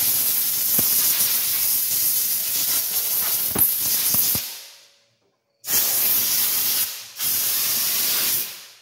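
Compressed-air blow gun hissing as it blasts metal chips off the vise and workpiece. One long blast fades out about halfway through, and after a short gap come two shorter blasts with a brief break between them.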